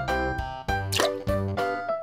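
Background music in a bouncy children's style with a steady beat, with a short sharp sound about halfway through.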